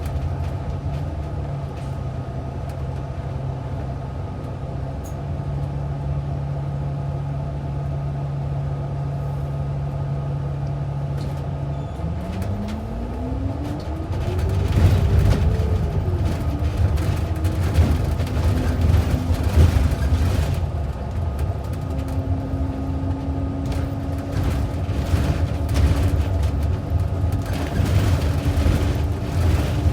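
Bus engine heard from inside the cabin, idling steadily, then pulling away about twelve seconds in with a rising whine that dips and settles into a steady higher drone. Short rattles and clicks from the cabin follow once it is moving.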